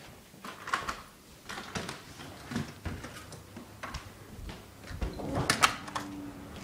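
Footsteps and a glass front storm door being pushed open and swinging shut, with a cluster of sharp clacks from the door about five seconds in.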